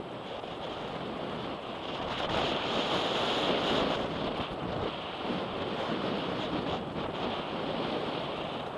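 Wind rushing over the microphone of a camera riding on a descending mountain bike, mixed with the rumble of tyres on a gravel trail. It grows louder for a couple of seconds near the middle.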